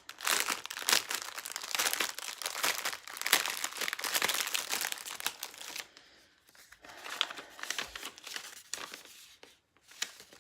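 Plastic packaging crinkling as it is handled and opened, dense for about six seconds, then sparser and quieter.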